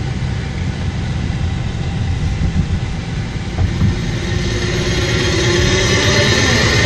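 A car driving along a road, heard from inside the cabin: steady engine and tyre rumble, with the engine note rising a little and getting louder in the second half as the car speeds up.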